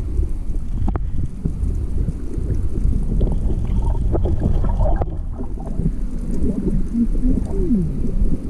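Muffled underwater rumble and water movement heard through a camera submerged just below the surface, with a few short wavering, gurgling sounds in the second half.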